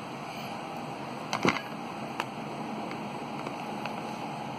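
Kitchen dishes and a knife being handled on a table: a few short knocks, the loudest a close pair about a third of the way in, over a steady background hiss.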